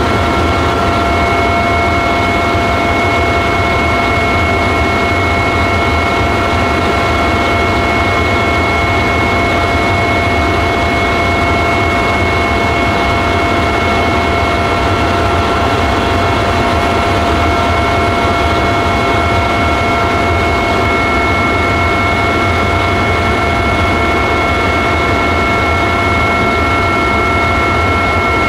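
Helicopter in steady flight, heard from inside the cabin: a constant loud drone of engine and rotor, with a steady whine at several pitches on top that does not change.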